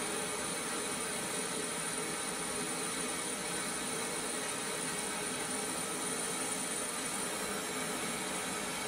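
Steady test noise, an even hiss, played through a Visaton BG 20 full-range speaker with its tweeter dome, as the measuring signal for a live frequency-response measurement. The level holds constant, with little bass and a faint steady high tone.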